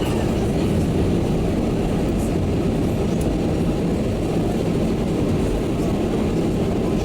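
Steady low rumble inside the passenger cabin of an Airbus A320, from its jet engines and the airflow around it.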